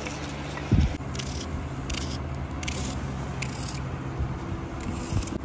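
Garlic cloves being peeled by hand: dry papery skins crackling and scraping in short scratchy strokes, with one dull thump about a second in.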